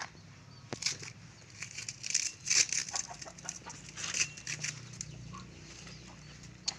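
Chickens clucking in short, irregular calls over a steady low hum.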